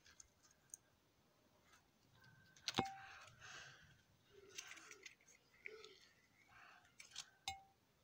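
Near silence: faint room tone with a few sharp clicks, one about three seconds in and another near the end, and some faint rustling.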